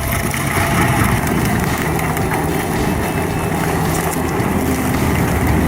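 Stump grinder running steadily under load as it grinds away a tree stump, its engine droning with a rough grinding noise.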